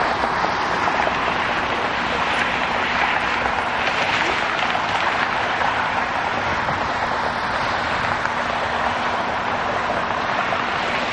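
Boeing 777-200ER's twin jet engines running at takeoff thrust during the takeoff roll, a steady roar.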